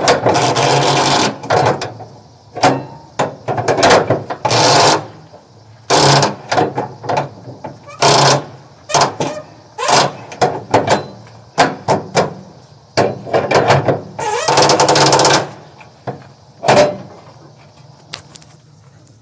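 Flatbed trailer strap winch being tightened with a winch bar, its ratchet clicking rapidly in a string of short bursts; the longest, about a second and a half each, come at the start and about three-quarters of the way through.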